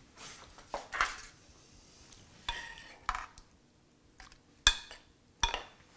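Metal spoon scraping and clinking against a skillet while chicken pie filling is stirred and scooped out: a few separate clinks and scrapes, the sharpest two near the end.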